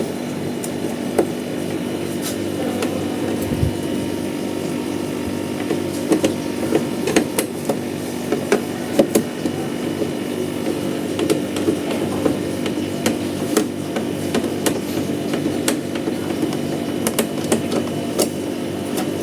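Hand tool working a stubborn bolt that the owner finds stripped: irregular clicks and knocks, most frequent through the middle, over a steady low hum.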